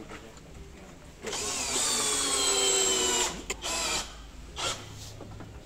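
Power drill driving screws to fix a woofer's frame to a speaker box: one long run of about two seconds with a slowly falling whine as the screw tightens, then two or three short bursts.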